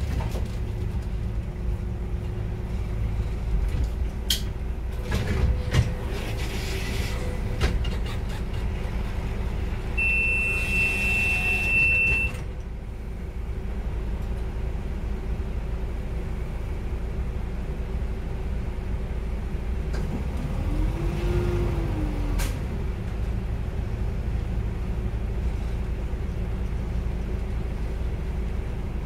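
Cabin sound of a VDL Citea XLE-145 city bus, its Iveco Cursor 9 diesel engine idling steadily. A few clicks and a hiss come about five seconds in. Near the middle a steady electronic beep sounds for about two seconds and cuts off sharply, and later a short tone rises and falls.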